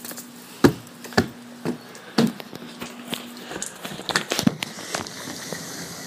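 Footsteps, about two a second, followed by a quicker run of lighter clicks and knocks.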